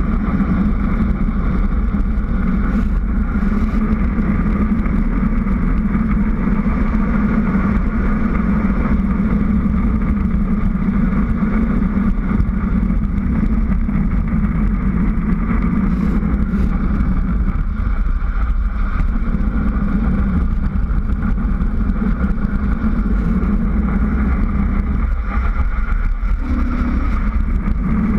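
Steady rush of wind buffeting an action camera's microphone as a bicycle descends a mountain road at speed, a constant deep rumble with a hissing edge.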